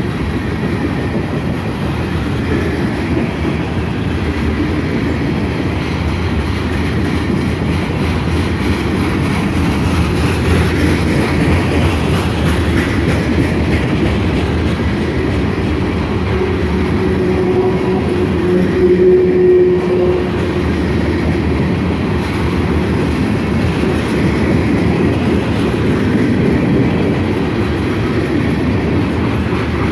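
Loaded covered hopper cars of a freight train rolling past on the rails, a steady heavy rumble of wheels on track. A faint whine sounds for a few seconds a little past halfway through.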